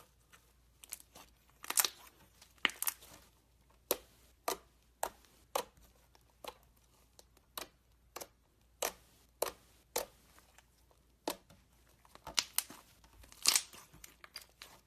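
Slime being kneaded and squished by hand, giving sharp sticky clicks and pops about once or twice a second. Louder crackling clusters come about two seconds in and again near the end.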